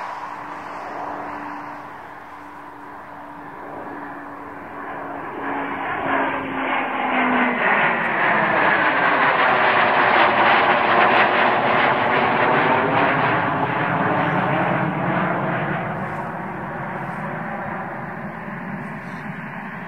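A pair of Eurofighter Typhoon jets, each with twin EJ200 turbofans, flying low overhead in a two-ship formation: the jet roar swells to its loudest about halfway through, then slowly fades as they pass, with a steady whine sliding down in pitch over the first several seconds.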